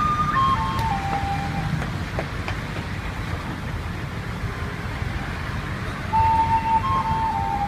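A slow tune of long, clear held notes stepping down in pitch, over steady traffic noise. The tune breaks off about two seconds in and starts again near the end.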